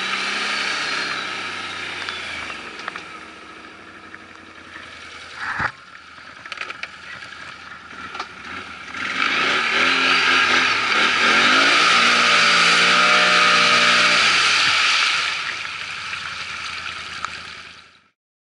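ATV engine running under load and revving, its pitch rising about halfway through, holding, then falling away, with a loud rushing noise over it for several seconds in the second half. There is a sharp knock about a third of the way in, and the sound cuts off just before the end.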